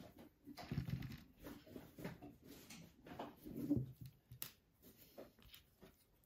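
Faint, irregular rustling and soft knocks of hands tying wool yarn and handling the plastic parts of a hand-cranked knitting mill, dying away near the end.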